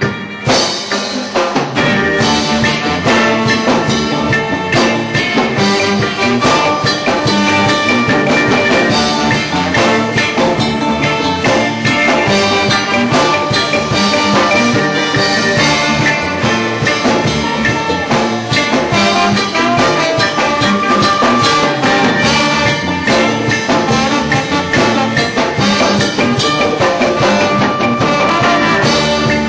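Live reggae band playing, loud and steady, with the full band coming in about a second in.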